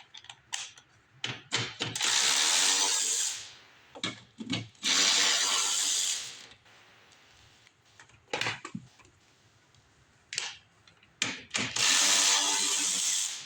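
A power drill fitted with a 5/16 socket spins fasteners in three runs of about a second and a half each, with clicks and knocks of tool handling between the runs.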